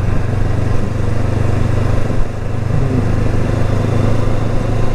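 Motorcycle engine running steadily in second gear, rider's-eye, pulling gently as the bike gathers a little speed, with steady wind and road rush.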